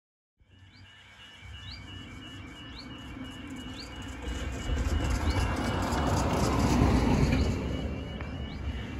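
Level crossing warning alarm sounding a rapid pulsing high tone while the road lights flash, with a van driving over the crossing: its road noise builds to a peak about seven seconds in and fades. Short high chirps repeat about once a second.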